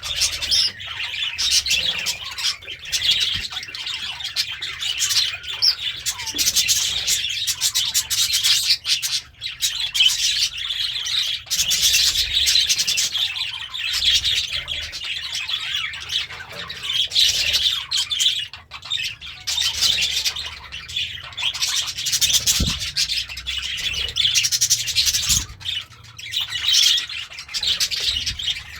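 Budgerigar chattering and warbling: a fast, continuous run of high chirps and squawks.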